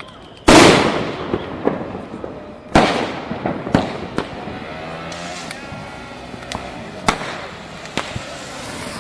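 Firecrackers bursting: a loud bang about half a second in and another a little under three seconds in, each trailing off slowly, with smaller sharp cracks and pops scattered between.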